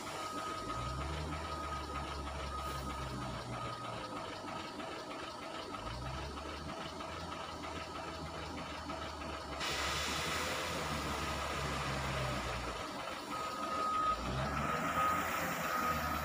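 Wheel loader's diesel engine working, revving up and settling three times, with its reversing alarm beeping about once a second as it backs away from the lorry. From about ten seconds in, a rushing noise of crushed stone chips scraping and sliding joins it as the bucket digs into the stockpile.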